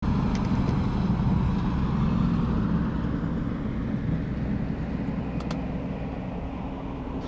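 Boat motor running with a steady low rumble that fades slowly, with a few light clicks over it.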